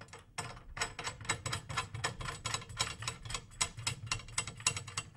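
Steel drum tension rod being turned by hand through the hoop into a floor tom's tension casing, its threads ticking rapidly at about six clicks a second as it is run in to thumb tight.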